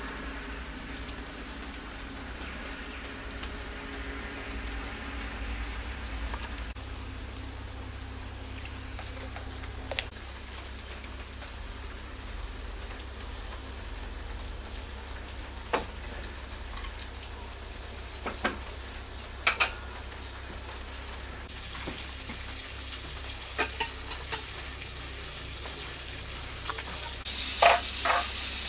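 Scattered clinks of bowls, lids and jars being set down and handled, over a steady low hiss. Near the end a frying pan on a small stove starts to sizzle more loudly, with two loud clatters.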